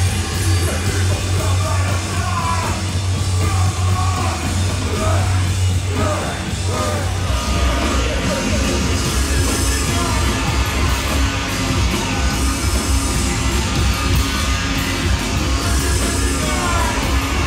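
Live band playing loud and heavy through a festival PA: shouted, yelled vocals over a deep bass drone and drums, the bass changing to a pulsing pattern about seven seconds in.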